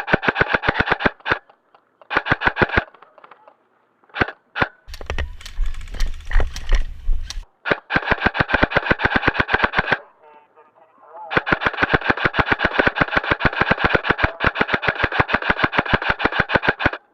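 Krytac Trident Mk2 airsoft electric rifle with a Gate Titan trigger unit firing full-auto in long bursts of rapid, evenly spaced clicks. In the middle come a few single shots, then a stretch of irregular clicks over a low rumbling from handling or movement, before two more long bursts.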